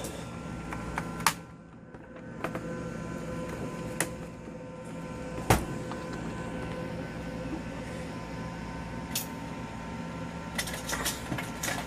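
Scattered clicks and knocks of a plastic laptop case being handled and clipped back together, the sharpest a little over five seconds in and several close together near the end, over a steady background hum.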